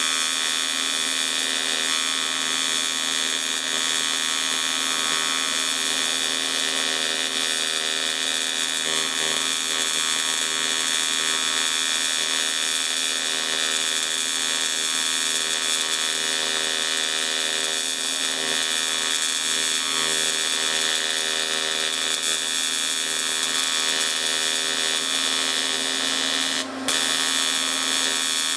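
TIG welding arc burning steadily while silicon bronze filler rod is fed onto a cast iron casting (TIG brazing), giving a steady electric buzz and hum. The arc briefly breaks with a click near the end and picks up again.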